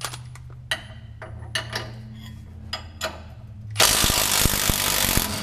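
A few light metallic clinks of a wrench being fitted to a nut, then about four seconds in a cordless impact wrench hammers loudly for about a second and a half, breaking loose the lower shock mounting bolt.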